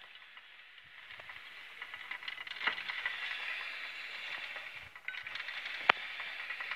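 Homemade metal shaper running, a steady rattling hiss that builds over the first two seconds, with two sharp knocks about three seconds apart.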